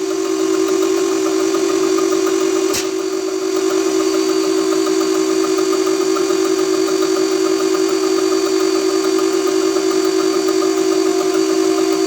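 Volvo FH460 truck's diesel engine running steadily at idle, with a single sharp click about three seconds in.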